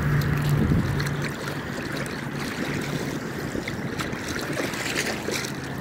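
Small waves lapping and sloshing in shallow sea water, with a steady low hum underneath that is strongest in the first second or so and a few faint clicks.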